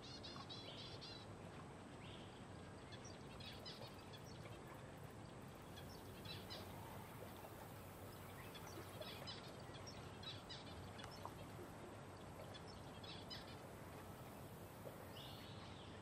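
Faint high chirping of small birds, short runs of quick notes every couple of seconds, over a steady low background hum.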